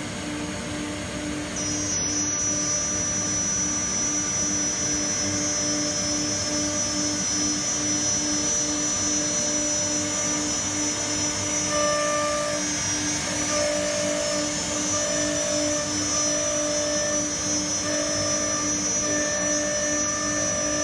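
Holztek RT1325V CNC router cutting a laminated board: a steady high spindle whine over an even mechanical drone, with an extra on-and-off hum joining about halfway.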